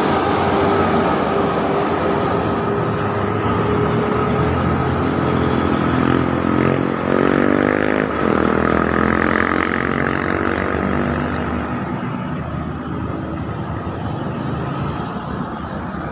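Diesel engine of a heavy vehicle labouring up a steep hill, its pitch rising and then falling about seven seconds in, fading toward the end as it moves away.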